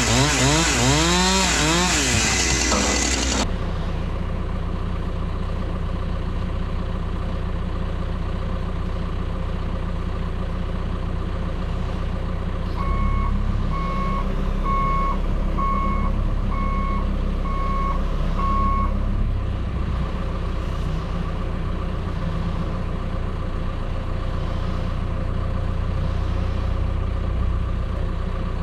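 A chainsaw revving up and down as it cuts, stopping sharply a few seconds in. A heavy engine then runs steadily. Midway a machine backs up with its reversing alarm sounding about seven beeps, roughly one a second, while the engine rises.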